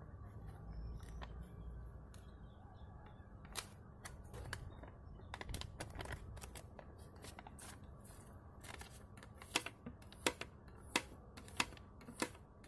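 A sheet of paper being folded and creased by rubber-gloved hands: crinkling and rustling with scattered sharp clicks, which come as a run of louder clicks about once a second near the end.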